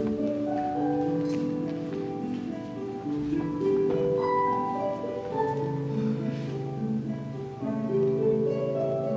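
Instrumental music: soft overlapping held notes, the melody moving to a new note about once a second.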